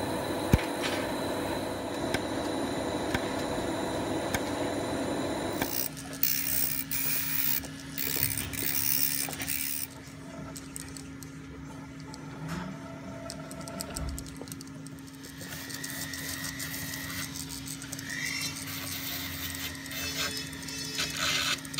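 Laser welder running with a steady noise and one sharp click of a weld pulse about half a second in. After a cut about six seconds in, a jeweller's micromotor handpiece hums steadily while a bur and then a rubber polishing wheel grind and scrape at the aluminium loop.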